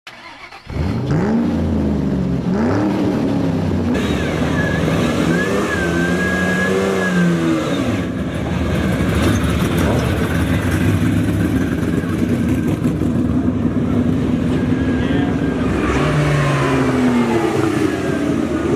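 Race car engines revving and running, loud throughout, pitch climbing and falling with the throttle, in several short clips one after another.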